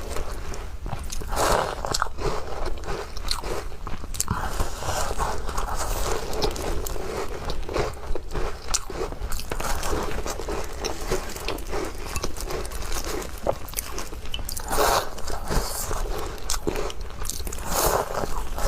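Close-up eating sounds of crumbly Chinese walnut cookies being bitten and chewed: repeated crunches and small sharp crackles in an irregular rhythm.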